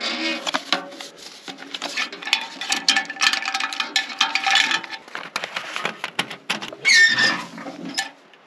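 Paper rustling and clicking as a permit is handled at a metal trailhead registration box, with a short squeak about seven seconds in.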